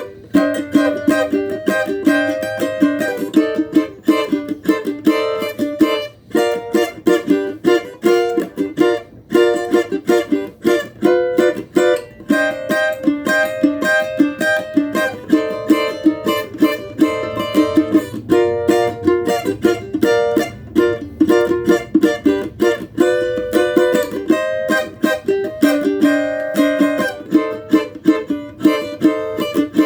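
Cavaquinho being played in quick plucked and strummed notes, with a few short breaks between phrases.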